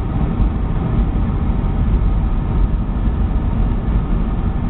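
Steady low cabin noise of a Boeing 757-200 in flight on its descent, the jet engines and airflow heard from inside the passenger cabin as an even, unbroken rumble.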